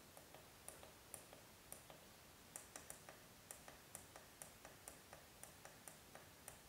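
Faint, repeated clicks of the small push button on an SR-2102BEA-RJ45 DMX decoder, pressed about three times a second to step its address setting up to 005.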